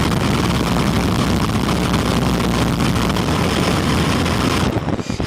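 Quanum Vandal electric RC buggy driving, its motor, drivetrain and tyres making a loud, steady noise that dips briefly near the end.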